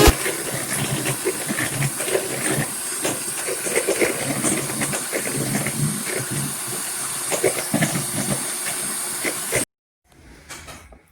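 Electric mixer beating a mousse mixture of condensed milk, cream and juice, running steadily with a rattling, hissing noise until it is switched off suddenly near the end.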